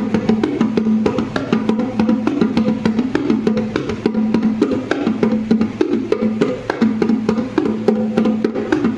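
Rapid, dense percussive tapping and knocking with a wood-block-like click, over a steady low tone that breaks off now and then.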